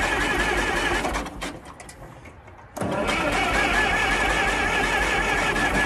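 International Harvester TD-9 crawler's engine being turned over by its starter, cranking with an even pulsing whine. The cranking stops a little over a second in and starts again about three seconds in as the engine is tried again.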